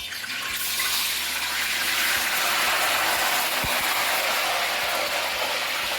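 Cubes of seasoned yam frying in hot oil: a steady sizzle that sets in about half a second in.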